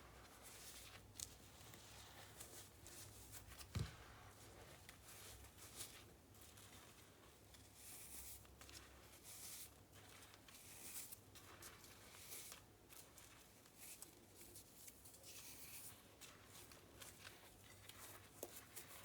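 Baking soda and cornstarch powder pressed and squeezed by fingers, giving a run of faint crisp squeaky crunches, with one louder knock about four seconds in.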